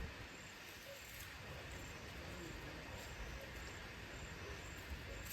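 Faint evening chirping of crickets: short high chirps repeating at a steady pace over a low outdoor hiss.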